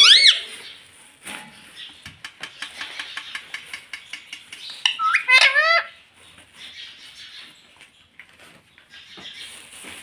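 Indian ringneck parakeet tapping and pecking its beak on a stainless steel pot lid, a run of quick sharp clicks. A short warbling call sounds right at the start, and a loud burst of rising-and-falling squawks comes about five seconds in.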